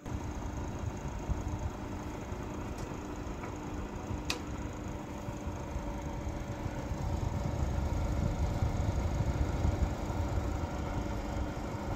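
Old electric heater with coiled resistance wires running: a steady low rumble with a faint hum. A sharp click comes about four seconds in.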